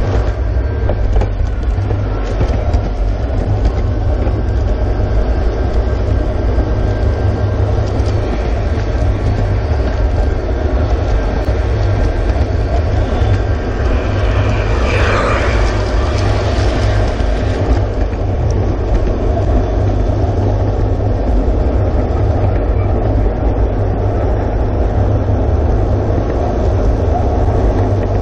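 A G-scale model freight train rolling along its track, a steady rumble of wheels on rail heard from aboard the train. About halfway through, a higher, brighter sound swells for a few seconds and fades.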